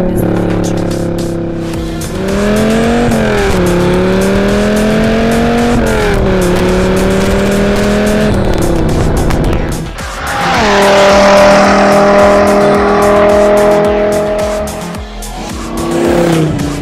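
Dodge Viper RT/10's 8.0-litre V10 running while being driven, its pitch climbing and dropping back several times as the gears are changed, then holding one steady note for a few seconds before falling away near the end.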